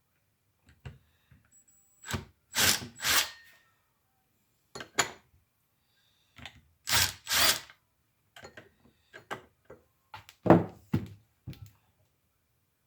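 A quarter-inch-drive ratchet wrench working a muffler bracket bolt loose on a chainsaw, in short ratcheting strokes that come in two pairs, then a few metal knocks from the tools a few seconds later.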